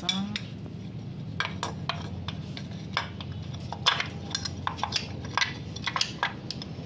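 Small chrome motorcycle trim parts and cap nuts clinking and tapping against each other as they are handled and fitted by hand: a string of irregular light metallic clicks.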